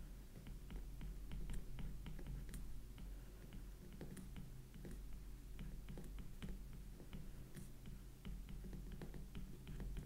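Stylus tapping and scraping on a tablet screen during handwriting: a run of light clicks, several a second, over a faint low hum.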